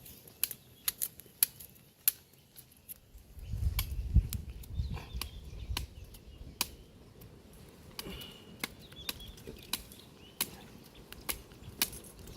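Wood cooking fire crackling: irregular sharp snaps and pops, with a low rumble about three and a half to six seconds in.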